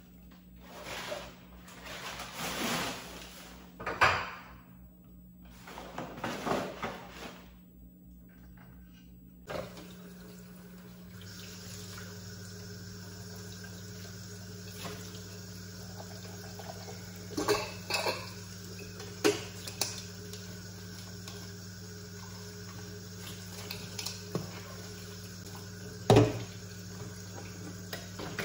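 Kitchen tap running into a stainless-steel sink as dishes are washed by hand, with sharp clinks of crockery, one loud clink near the end. Before the water starts there are a few short bursts of clatter and rustling as things are cleared off the counter.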